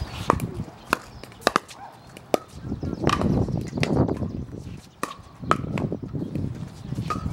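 Paddles striking a plastic pickleball in a rally: a series of sharp, hollow pocks at irregular intervals.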